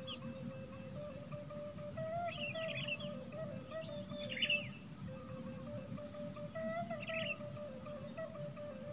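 Slow, soft background instrumental music with a flute-like melody stepping up and down, with birds chirping in short bursts a few times and a steady high insect drone.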